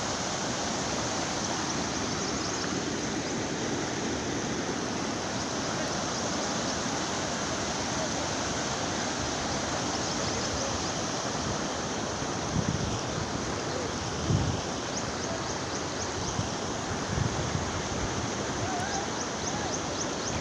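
Floodwater rushing across a road, a steady even rush of flowing water. A few short low rumbles come through in the second half.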